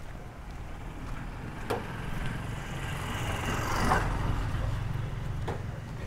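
A motor vehicle passing: its engine noise grows to a peak about four seconds in, then fades away, over a steady low rumble.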